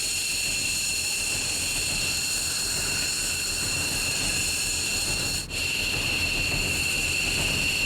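F-15J Eagle's jet engines running with a steady, loud rushing noise and a high-pitched turbine whine, broken by a brief dropout about five and a half seconds in.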